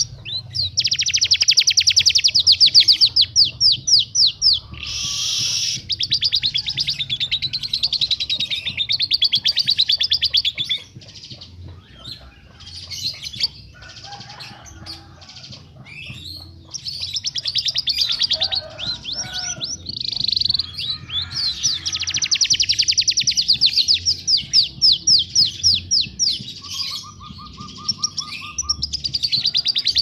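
Small songbirds singing loud, sharp, rapid-fire trills and chatter, the notes coming too fast to count. The song is compiled into a masteran tutor track for training competition songbirds. About a third of the way in it drops to a quieter stretch of scattered chirps and calls, then the dense trilling returns.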